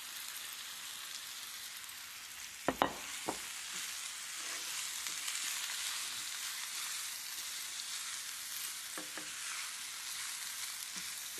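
Shredded rotisserie chicken sizzling with ginger, garlic and scallion whites in peanut oil in a hot 14-inch nonstick skillet, tossed with tongs. Two short knocks come about three seconds in.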